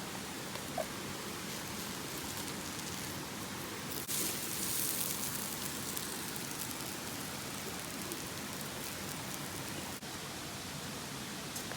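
Steady rush of a flowing mountain river, an even hiss of water, growing brighter for a couple of seconds about four seconds in.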